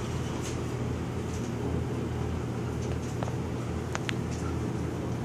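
Dry-erase marker squeaking and scratching in short strokes on a whiteboard, a sharp double squeak about four seconds in, over a steady low hum of room noise.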